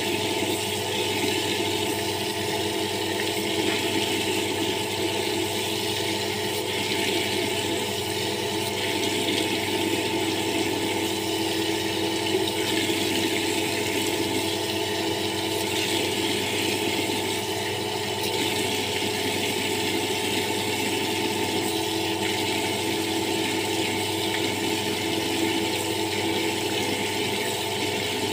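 Water running steadily from a wall tap and splashing on the tiled floor as hands and forearms are washed in the stream, over a steady hum.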